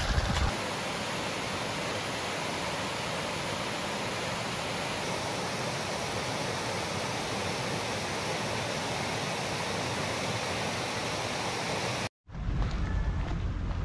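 Water pouring over a low concrete weir, a steady, even rush of falling water. It cuts off abruptly about twelve seconds in.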